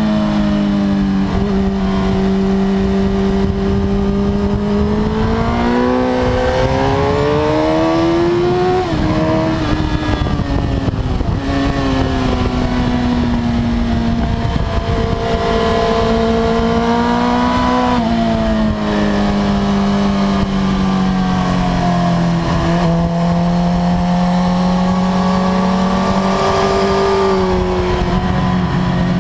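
Suzuki GSX-R1000 K5's inline-four engine heard from the rider's seat on track, its pitch climbing under throttle and falling away into the corners several times over, with wind rush over the microphone.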